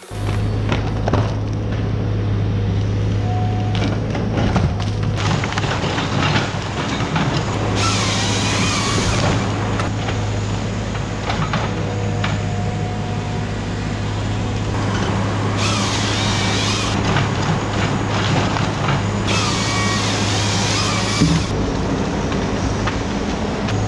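John Deere 753G harvester's diesel engine running steadily under load, with repeated bursts of louder, hissing noise from the Logmax processor head working.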